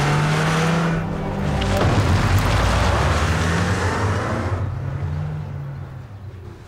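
Car engine revving up in several rising pulls as a car accelerates away, the sound fading out over the last couple of seconds.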